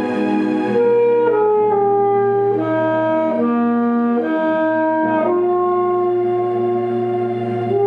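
P. Mauriat PMXA-67R alto saxophone with a Selmer S80 C* mouthpiece playing a slow melody: a run of stepping notes, then one long held note from about five seconds in, with a new note starting near the end.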